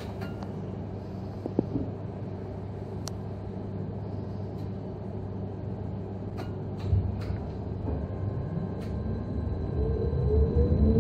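Bombardier SN 2001 tram heard from on board: a steady low hum and rumble, then from about eight seconds in the traction drive's whine rises in pitch and the running gets louder as the tram accelerates.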